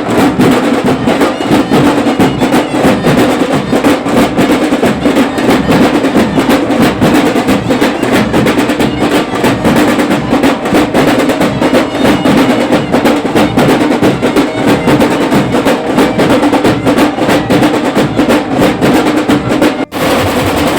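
Loud procession drumming, a dense, fast run of drum and wood-like strokes over a steady din, breaking off briefly near the end.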